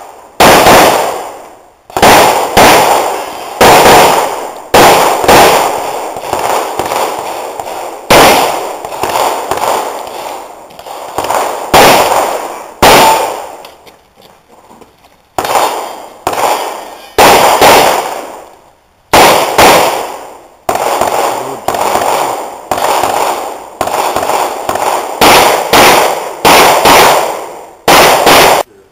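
Handgun fired in quick strings of shots, each sharp crack followed by a short echo, with a pause of about a second and a half about halfway through; the firing stops just before the end.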